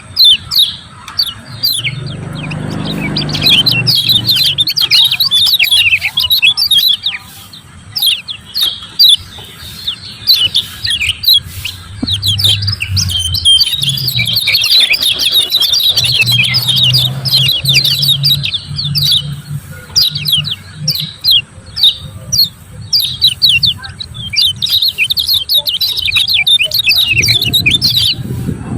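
Kecial kuning white-eye calling in rapid, continuous 'ciak ciak' chirps, many quick downward-sweeping high notes, over a faint low hum.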